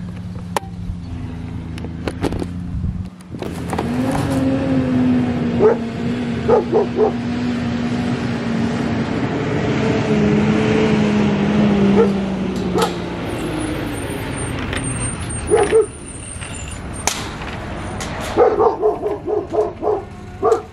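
A dog barking in several short runs over the steady running of a delivery truck's engine.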